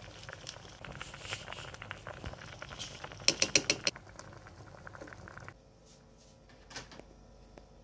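A pot of instant noodle soup boiling, bubbling with small pops and crackles. A quick run of about six sharp clicks, the loudest sounds here, comes a little past three seconds in. After about five and a half seconds the sound drops to a much quieter level.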